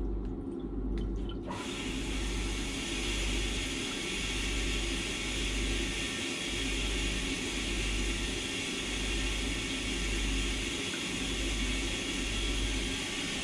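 Diesel fuel being poured from a bottle into the generator's fuel filter housing to refill it after a filter change: a steady pouring hiss that starts about a second and a half in. A low machinery hum that swells and fades slowly runs underneath.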